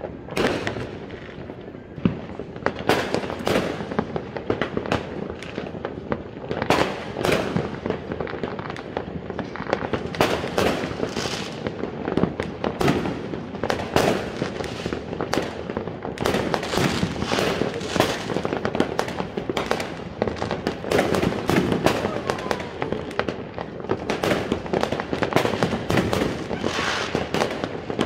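Many fireworks and firecrackers going off at once: a dense, unbroken run of bangs and crackles with no pause.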